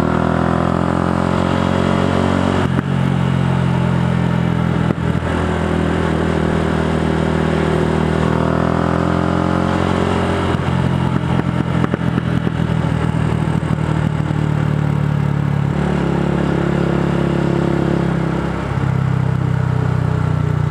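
Yamaha YZF-R125's single-cylinder four-stroke engine through an aftermarket Devil exhaust, heard from the rider's seat under way. The engine note rises and falls several times with throttle and gear changes.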